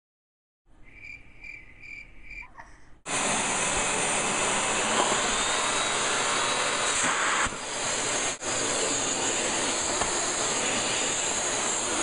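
A few faint high chirps, then about three seconds in the Dyson DC39 canister vacuum's motor comes on and runs with a loud, steady rush of air as the floor head works a hardwood floor. The rush dips briefly about eight seconds in.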